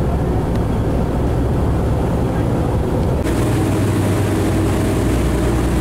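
Steady low drone of a party fishing boat's engine running under way, with a rushing hiss over it. About three seconds in, the sound shifts: the hiss grows and the drone becomes steadier.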